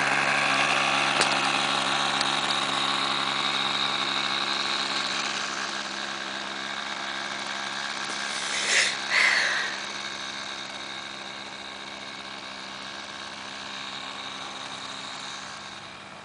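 Sig Kadet LT-40 model airplane's small engine running steadily while the plane taxis away down the runway, its note fading as it gets farther off. Two brief loud noises come about nine seconds in.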